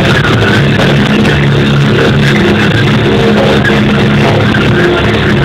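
Live rock band playing loudly, with sustained low notes held under a dense wash of guitar and cymbals.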